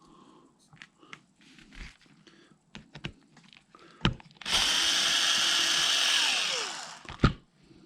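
Power drill/driver spinning for about two seconds to back out a small screw, its pitch falling as it winds down. Small handling clicks come before it, with a sharp knock just before and another just after.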